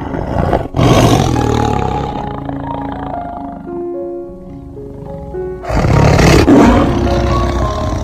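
A large animal roaring twice, each a rough, loud call lasting a second or two, over background music with mallet-like notes.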